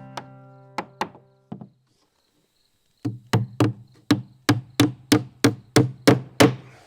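Hammer driving a nail into wooden trim: a few scattered blows, then a steady run of about a dozen strikes, roughly three a second, setting the last nail.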